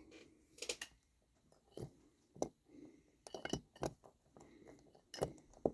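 Scattered small clicks, knocks and scrapes of a plastic HO-scale locomotive body shell being handled and pressed down onto its chassis over a newly mounted CD-ROM motor, with the shell not seating.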